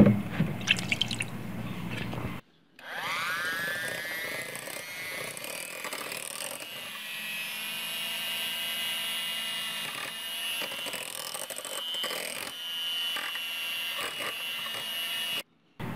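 Electric hand mixer whisking a thin chocolate mixture of cocoa, cream, condensed milk and milk in a glass bowl. Its motor whines up to speed about three seconds in and then runs steadily. Before that come a few short splashes and knocks as the milk goes in.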